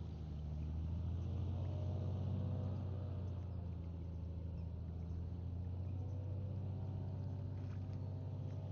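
Engine running at a steady speed with a low, even drone.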